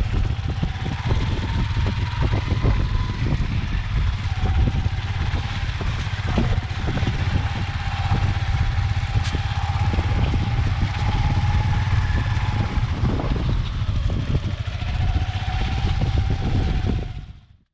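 Motorbike being ridden across sand on a flat tyre studded with screws: the engine runs under heavy wind rumble on the microphone, with scattered knocks. The sound fades out abruptly near the end.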